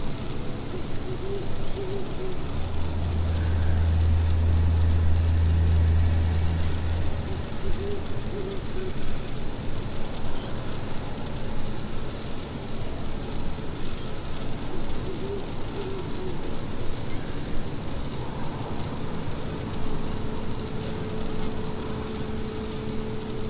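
An owl hooting faintly in short bouts, three times about seven seconds apart, over the steady pulsing chirp of crickets. A low rumble swells for a few seconds near the start.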